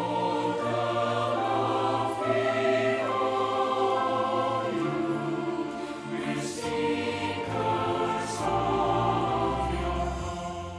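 A mixed choir singing the closing bars of a gospel song in long held chords, with a deep low note joining underneath about two-thirds of the way through.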